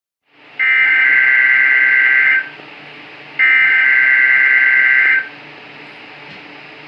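NOAA weather radio receiver relaying two bursts of warbling digital alert tones, each about two seconds long and a second apart, over static. Afterwards only static hiss follows, with no test message: the relay of the Required Weekly Test failed.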